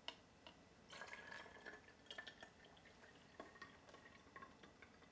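Faint trickling and drips as liquid is poured from a measuring cup through a funnel into a bottle, after a single light click at the start.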